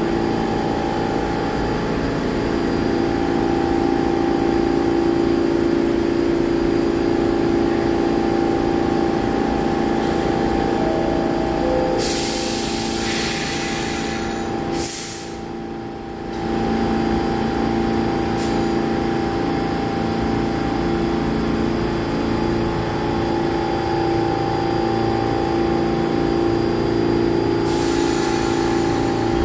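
R46 subway train standing in the station with its equipment humming steadily. About eleven seconds in comes a two-note falling door chime, then a hiss of air as the doors close. The hum drops out briefly soon after, and another burst of air hiss comes near the end.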